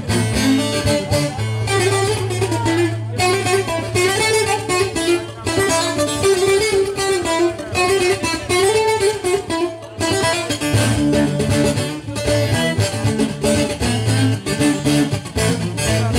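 Loud amplified halay dance music, led by a plucked-string melody over a steady low drone. The music changes a little past halfway.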